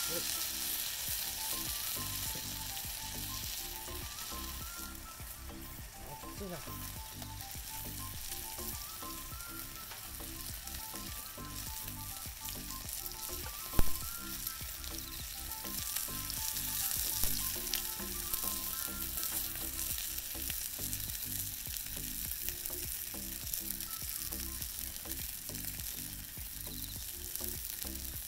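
Thick ground-meat patty sizzling steadily in an iron skillet over a wood fire, with light background music. One sharp knock about halfway through.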